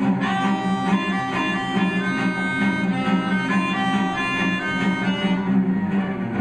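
Melodica and cello playing together: the melodica plays a run of short, quickly changing notes over a steady low bowed cello line.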